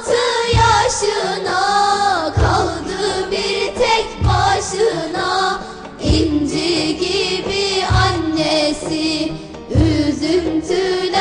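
Children's choir singing a song with instrumental backing and a low drum beat about every two seconds.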